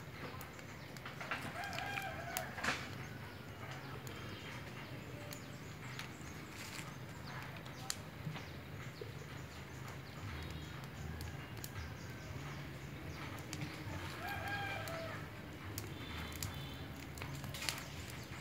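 A rooster crowing faintly twice, the calls about twelve seconds apart, over a steady low hum and scattered sharp clicks.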